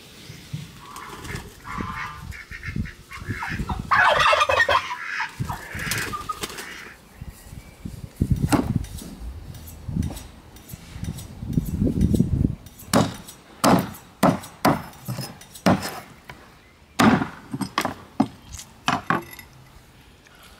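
Farmyard fowl calling for the first several seconds, loudest about four seconds in. From about eight seconds on, a run of irregular sharp chops and knocks: a heavy knife cutting through a sturgeon's head on a wooden chopping stump.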